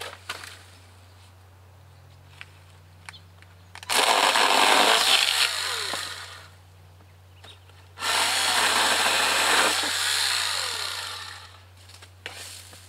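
Greenworks 40V battery pole saw running in two bursts of a few seconds each, cutting into queen palm fronds; each burst starts suddenly and fades as the trigger is let go and the chain winds down.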